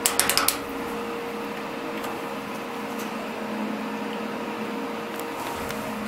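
A quick run of sharp clicks as a push button on the elevator's car panel is pressed, then a steady hum with a faint constant tone inside the stationary elevator car.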